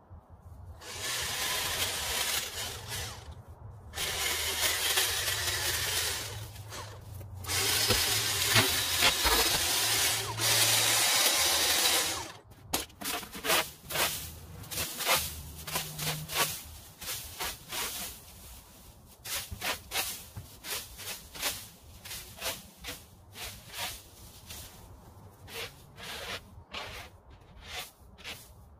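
String trimmer running in three bursts of a few seconds each as it cuts weeds. From about twelve seconds in, a leaf rake scrapes cut debris across a concrete walkway in quick, repeated strokes.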